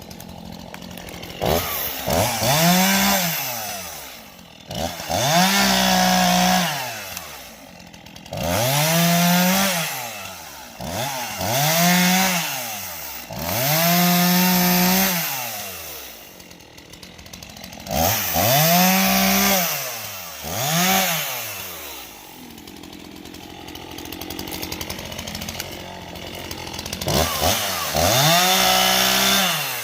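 Stihl two-stroke chainsaw repeatedly revving up to full throttle, holding there for a second or two and dropping back to idle, about eight times: short cuts through the felled dead fir's branches and trunk.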